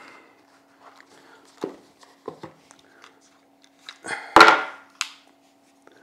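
Hands taking a DJI Pocket 3 camera out of its zippered hard carry case: a few soft knocks and taps, then a louder brief thump and scrape about four seconds in, with a click just after.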